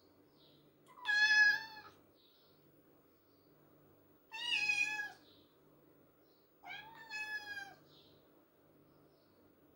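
Kitten meowing three times, each a drawn-out meow a few seconds apart: a kitten calling after its owner has left the house.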